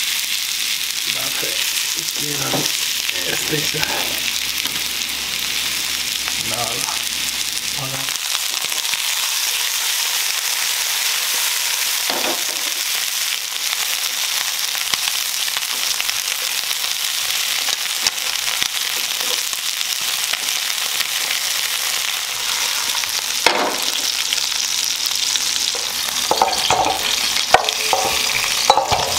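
Chicken wings pan-frying in hot oil, sizzling steadily, with occasional knocks and scrapes of tongs against the pan that cluster near the end as the wings are tipped out.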